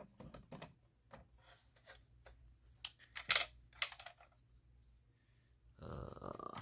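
Handling noise from a plastic smoke alarm: a series of light clicks and taps, a few sharper ones around the middle, then a short scraping rub near the end.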